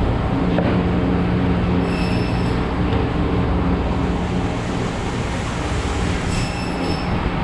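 Steady low mechanical hum from running machinery, with a brief high-pitched squeal about two seconds in and another about six seconds in.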